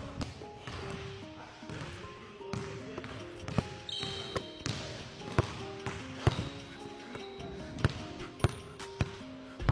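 A basketball bouncing on a hardwood gym floor, sharp single bounces at uneven intervals, over background music with a melody of short notes.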